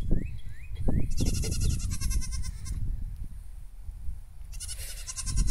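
Goats bleating, in a bout about a second in and another near the end: the herd complaining at being kept out in the light rain.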